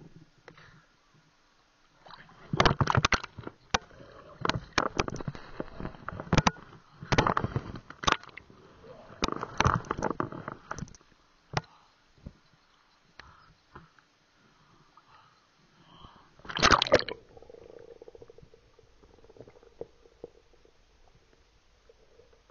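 Water sloshing and gurgling around a camera being dipped into shallow water, in irregular loud bursts with sharp knocks. A last burst comes about three-quarters of the way in.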